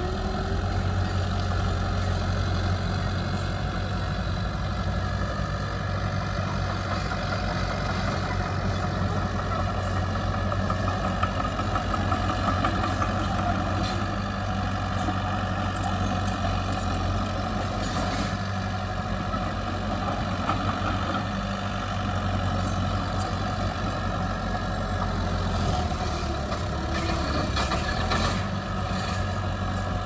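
Heavy diesel engine of earthmoving equipment running steadily at a low, even speed, with a few sharp clicks or clanks in the middle and near the end.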